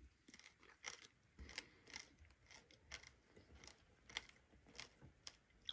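Near silence, with faint, irregular small clicks and ticks about once or twice a second.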